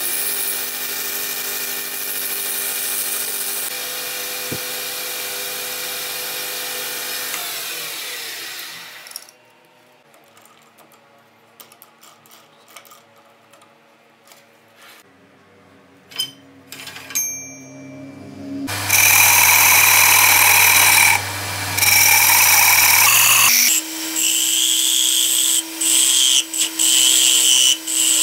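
Wood lathe running while a gouge cuts the spinning wooden cup, then winding down about 8 s in; a quiet stretch with a few clicks follows. Near the middle a louder steady machine noise runs for about five seconds, then the lathe runs again as the gouge hollows the cup in short repeated cuts.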